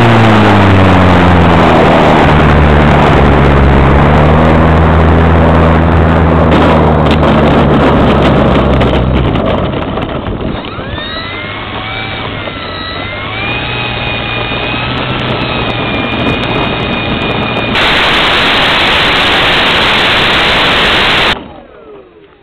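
Onboard sound of a Parkzone SE5a radio-control plane's motor and propeller, dropping in pitch as the throttle comes back for landing, then running steadily with wind rush. About nine seconds in it goes quieter as the plane is down, with thin wavering whistles. Near the end comes a loud steady hiss that cuts off suddenly.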